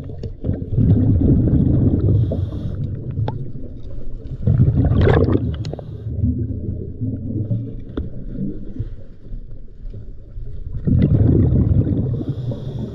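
Scuba diver's breathing heard underwater through the camera: exhaled bubbles from the regulator bubble up in loud swells a few seconds apart, with a muffled rumble of water moving past the microphone in between.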